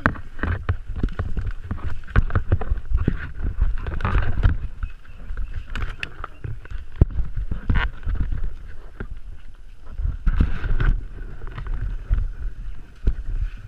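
Rustling, knocking and rubbing as a helmet-mounted camera moves through thick brush, with many short clicks and a rough, uneven low rumble of handling noise.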